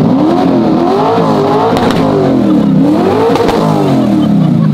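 Twin-turbo 408 stroker V8 of a 1969 Camaro revved twice through a NASCAR-style flat side exhaust, heard from inside the car. Each rev rises in pitch and falls back, with a few sharp cracks near the top of the second. The turbos are barely heard.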